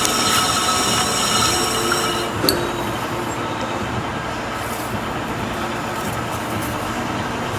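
Metal-cutting machine tool running while cutting steel, with a high, steady squeal from the cut over a noisy machine hum. The squeal stops a little over two seconds in with a sharp click, and the machine runs on without it.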